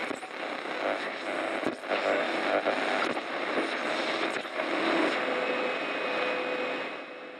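Intro sound under a title card: a dense, steady rushing noise with a few clicks, fading out near the end.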